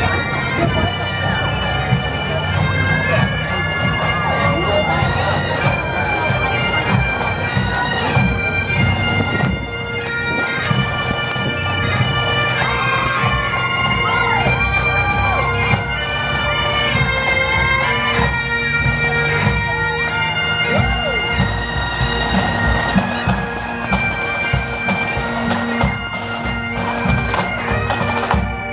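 Pipe band playing a tune as it marches past: several Great Highland bagpipes sounding a melody over their steady drone, with snare and bass drums keeping time.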